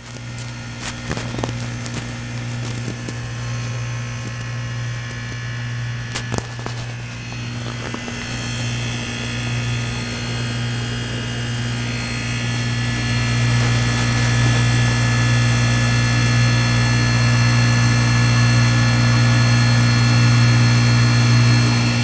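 American Standard heat pump outdoor unit running in its defrost cycle: a steady electric hum with a high-pitched hiss and whistle on top. The whole sound grows louder about halfway through and holds there, and there are a couple of sharp clicks near the start.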